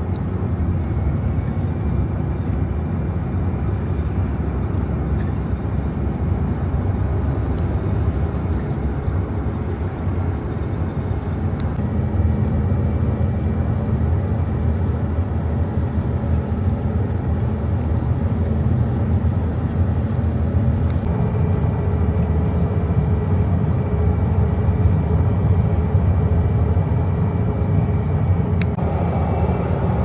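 A vehicle running: a steady low rumble that stays even throughout, with no breaks.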